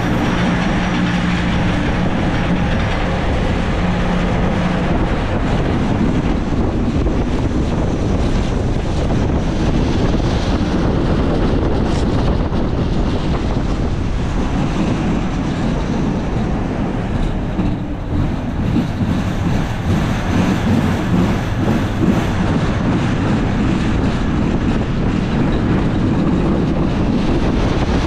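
Schwarzkopf Speed Racer coaster train running along its steel track, heard from the back car: a steady, loud rumble and clatter of wheels on rails. A steady electric hum from the spiral lift underlies the first few seconds, then stops.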